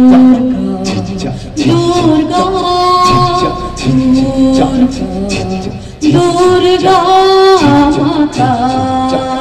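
Male and female voices singing a Bengali devotional song to Durga through microphones, in long held notes that slide from one pitch to the next, over scattered percussion hits.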